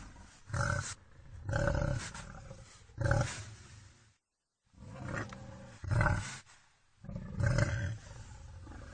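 Wild boar calling in a string of about six short, loud, harsh calls roughly a second apart, with a brief gap of dead silence about four seconds in.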